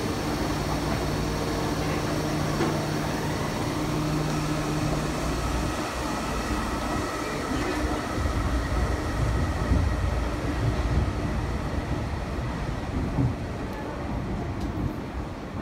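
Yokohama Municipal Subway Green Line 10000 series linear-motor train pulling out of the station. Its motor whine rises as it accelerates, and the running rumble is loudest as it passes, then falls away over the last few seconds.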